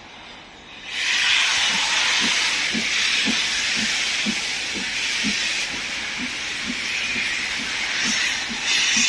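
LMS Coronation class steam locomotive 46233 'Duchess of Sutherland': a loud hiss of steam starts suddenly about a second in, over steady exhaust beats about two a second.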